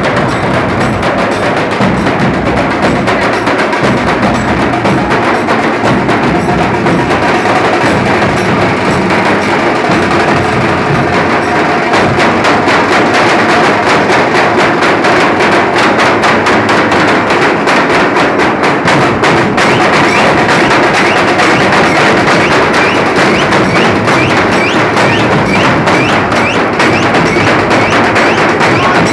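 Nashik dhol ensemble playing loud: large stick-beaten barrel drums (dhol) in a fast continuous rhythm, with a large brass cymbal clashing. The beat gets louder and denser about twelve seconds in.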